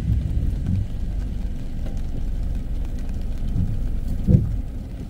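Thunder from a tropical thunderstorm rumbling low and unevenly, with a short thump about four seconds in.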